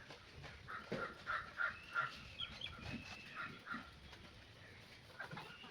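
Birds calling: a quick run of short repeated calls about a second in, then thinner, higher chirps.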